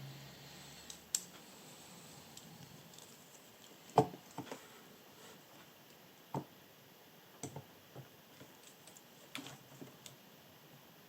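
Soldering iron work on a motherboard: a few scattered light clicks and taps as the iron meets the board and wires. The sharpest tap comes about four seconds in.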